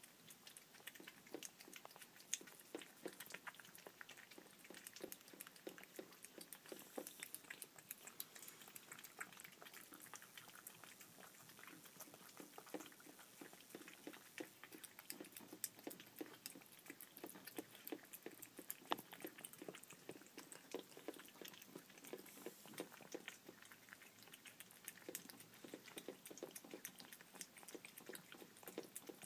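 Cats eating wet cat food from glass bowls: a rapid, close run of wet chewing and lip-smacking clicks, several a second.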